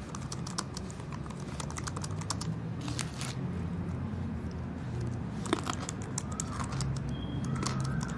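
Fingers typing on a laptop keyboard: a quick run of keystroke clicks for about three seconds, a pause, then another short burst about five seconds in, over a low steady hum.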